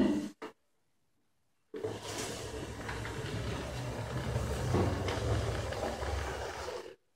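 iRobot Braava mopping robot running on a tile floor: a steady low buzz with a scrubbing hiss that starts about two seconds in and cuts off suddenly near the end. A brief noise comes just at the start.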